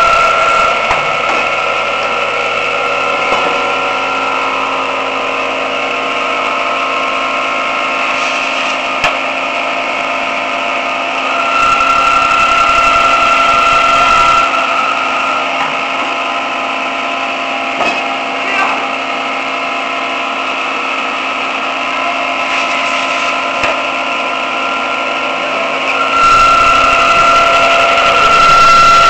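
Small machine tool running with a steady whine while it cuts an aluminium workpiece clamped in a vise. It gets louder for a few seconds about twelve seconds in and again near the end.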